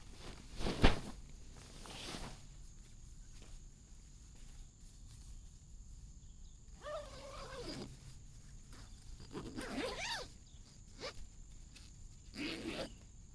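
Outdoor evening ambience with a steady high-pitched insect drone. There is a sharp knock about a second in, and three short animal calls with sliding pitch, one falling, spaced a few seconds apart in the second half.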